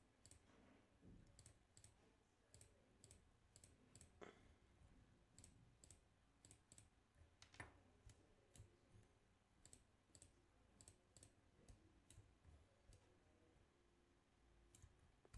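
Faint, irregular clicks of a computer mouse, a couple of dozen spread over the stretch, with a few slightly louder ones about 4 and 7.5 seconds in.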